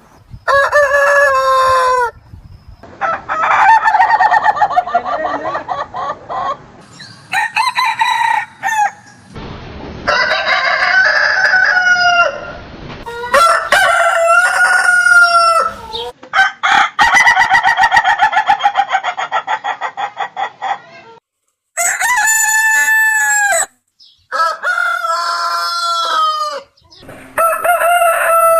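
Roosters crowing one after another, about nine separate crows from different birds, each a long pitched call lasting one to four seconds, with short gaps between them.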